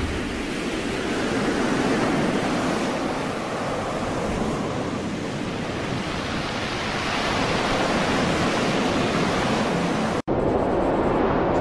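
Steady rush of storm wind and heavy sea, swelling and easing slowly, with no distinct events; the sound drops out for an instant about ten seconds in.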